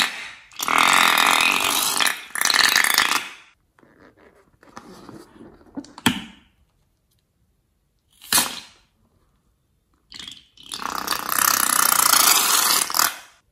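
Balloons filled with coloured liquid being squeezed so that the liquid and air squirt out through the neck in noisy spurts. There are two long squirts, one about a second in and another near the end, with a few short spurts between.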